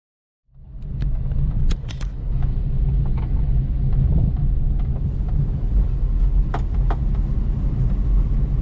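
Steady low rumble of a car driving, heard from inside the cabin, with a few sharp clicks or rattles.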